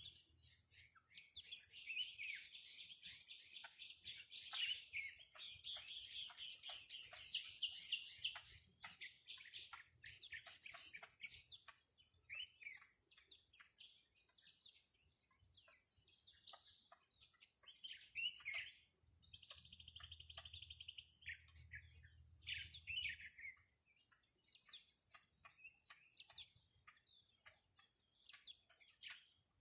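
Songbirds singing and chirping, many short calls and trills overlapping, busiest in the first nine seconds, with a fast, even trill about twenty seconds in and sparser chirps after.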